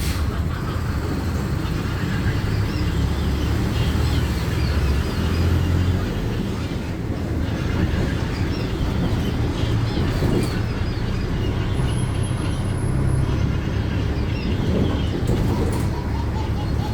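Cabin of a city bus on the move: steady low engine and road rumble, with a few faint knocks and a brief high whine about twelve seconds in.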